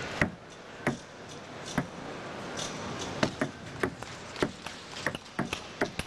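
Table tennis rally: a celluloid ball knocking sharply off the bats and the table, the hits under a second apart and coming quicker after about four and a half seconds.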